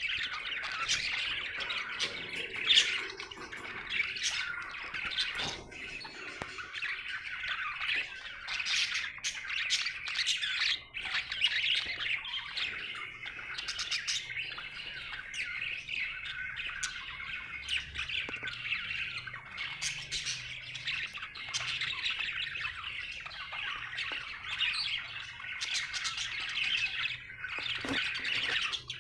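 Budgerigar chirping and chattering without a break, a dense stream of quick, high chirps with one sharper, louder note about three seconds in: the running chatter of a happy budgie.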